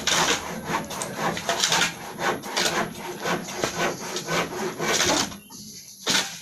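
Rapid, repeated rasping strokes of a tool scraping or sawing, several a second, that stop about five seconds in, with one more short stroke near the end.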